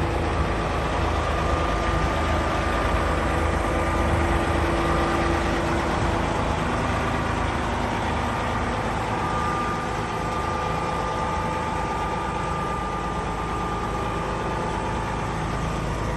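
Cat diesel engine of a 2018 Cat 374FL hydraulic excavator running steadily, with a thin steady whine above the engine note.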